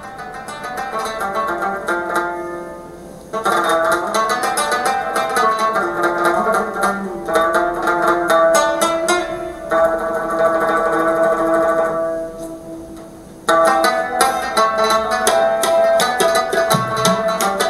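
Background music led by a plucked string instrument playing quick picked notes over held tones. It starts soft, swells after about three seconds, dips once about three quarters of the way through and comes back at full strength.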